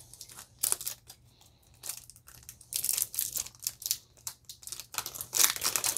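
Foil wrapper of a Yu-Gi-Oh Toon Chaos booster pack being torn open by hand: crinkling and crackling, a few separate crackles at first, then denser from about halfway through. These packs are harder to tear open than an average Yu-Gi-Oh pack.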